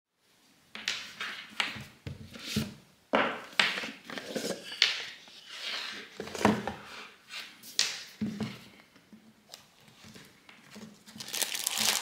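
Cardboard watch box being opened and handled: a string of scrapes, knocks and rustles of card, with plastic wrapping starting to crinkle near the end.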